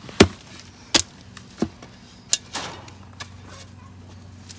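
A series of sharp knocks, about five in the first three seconds and irregularly spaced, the first the loudest, over a faint low steady hum.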